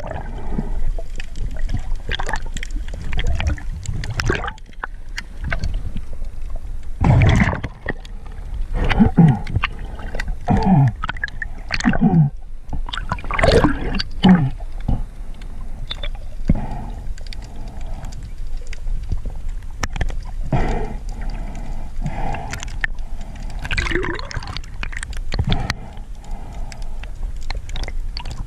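Water gurgling and sloshing, heard underwater through an action camera's housing, in uneven swells that are strongest in the middle.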